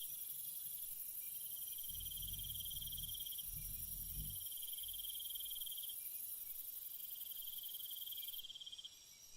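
Jungle insects chirring: a steady very high buzz that cuts off near the end, under a pulsing trill that repeats about every two seconds. A low rumble comes in between about two and four seconds in.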